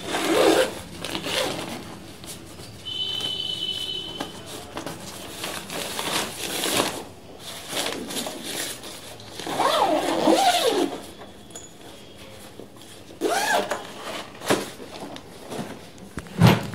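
Rustling and scraping of a suitcase's thin polyester lining and its zippered fabric divider panel being pulled and folded by hand, in irregular bursts. A couple of dull knocks come near the end.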